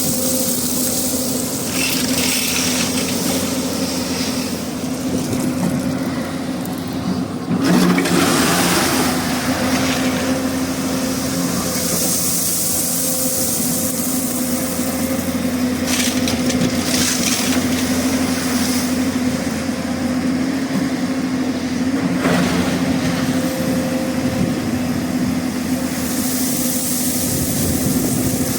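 Hyundai 215 crawler excavator's diesel engine running steadily under working load, with several bursts of stone clattering and scraping as loose rock is dug and dumped. The loudest burst comes about eight seconds in.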